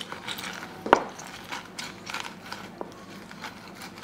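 Kitchen handling sounds as mint and citrus are readied for a jug of drinking water: small clicks and rustling, with one sharp knock about a second in.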